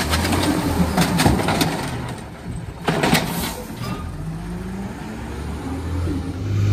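Cummins Westport ISL G natural-gas engine of a Peterbilt 320 running and revving, its pitch rising near the end as the garbage truck pulls away. Rattling and knocks from the automated side-loader arm lowering and releasing a plastic trash cart, with a loud clatter about three seconds in.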